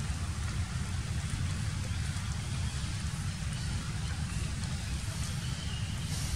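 Steady outdoor background noise: a low rumble with an even hiss above it, and no distinct calls or knocks.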